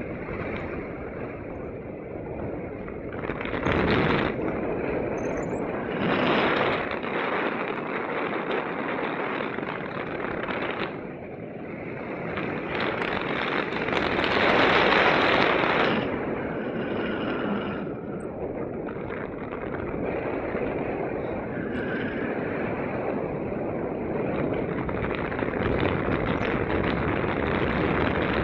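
Wind rushing over the camera's microphone in flight under a paraglider: a continuous rush of air that swells in several stronger gusts, the longest about halfway through.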